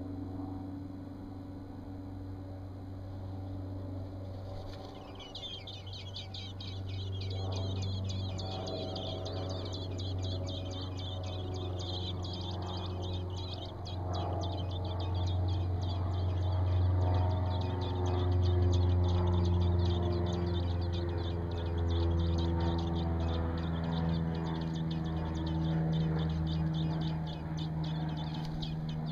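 Robin nestlings begging for food: rapid, high-pitched peeping that starts about five seconds in and keeps going. A steady low hum runs beneath it.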